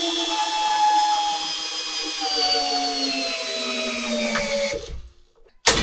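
Makita 40V XGT cordless hammer drill on its lowest speed driving a 12-inch lag bolt into a wooden post: a steady motor whine whose pitch sinks slowly as the bolt bites deeper and loads the motor, then stops about five seconds in. A short knock follows near the end.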